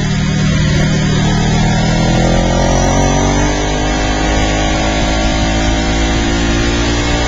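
Ducati 1098-series sport bike's L-twin engine at racing speed on track. The revs dip about two to three seconds in, then climb steadily as it drives out of a corner.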